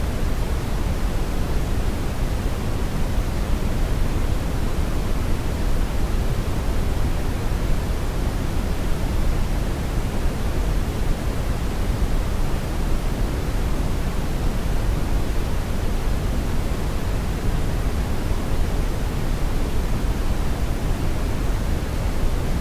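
Synthetic brown noise: a steady, deep rumbling hiss, strongest in the low end and falling off toward the highs, with no change throughout.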